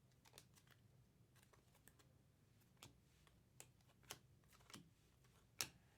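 Faint, irregular clicks and snaps of chromium trading cards being flipped through by hand, card edges flicking against each other, with a few sharper snaps in the second half.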